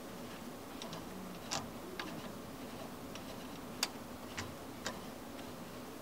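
A few sharp, irregular light clicks and taps, the loudest a little before the four-second mark, over a faint steady low hum.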